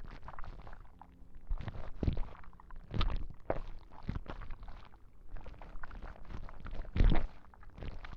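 ASMR prop sounds: irregular close-miked tapping, clicking and rustling, with two louder knocks, one about three seconds in and one near the end.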